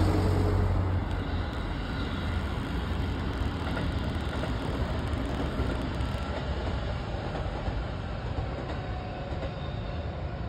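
Electric commuter train running across a viaduct bridge: a steady noise of wheels on the track, a little louder in the first second.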